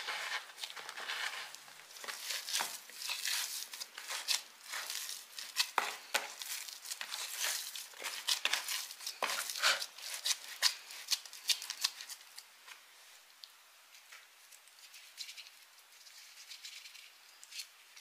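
Gloved hand kneading and squeezing a damp soil-and-sand mix in a plastic tub: irregular gritty crunching and squelching scrapes, which thin out to faint rustles after about twelve seconds.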